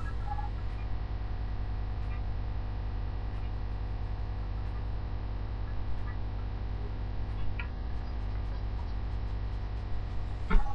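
Steady low electrical mains hum from the recording chain, with a few faint clicks and one sharper knock near the end.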